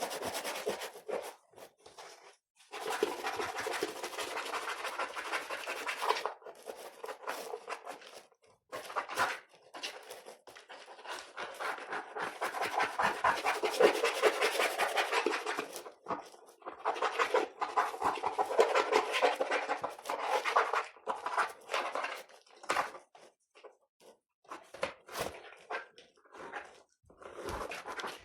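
Scrubbing and rubbing on a keyboard during cleaning, in several long bouts of scratchy back-and-forth strokes with short taps and clicks in between.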